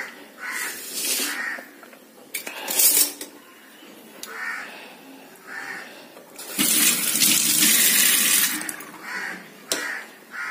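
Kitchen tap running into a stainless steel sink for about two and a half seconds, starting about six and a half seconds in, with a couple of brief clatters earlier.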